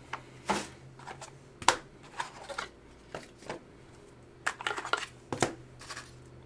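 Scissors cutting: a string of short, irregularly spaced snips and rustles, with a small cluster about four and a half seconds in.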